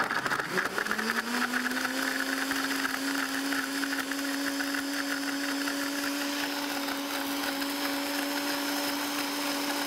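Countertop blender puréeing pitted dates with a little water. The motor spins up in the first second to a steady high hum, and the noisy chopping of the fruit is loudest in the first few seconds, easing as the mix turns smooth.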